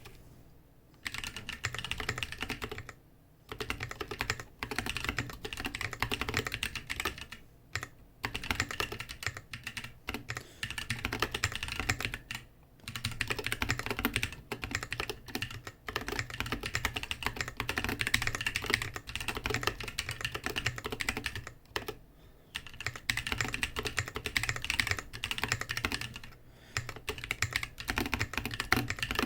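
Typing on a newly built Lily58 Pro split mechanical keyboard from a MysticMechs kit: runs of key clacks at a slow, even pace, broken by short pauses every few seconds.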